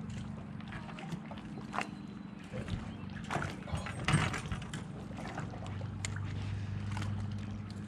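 Knocks, rustling and scrapes of a smallmouth bass being handled and worked out of a landing net on a boat deck, with a few sharper knocks about two, three and a half and four seconds in. A steady low electric hum runs underneath.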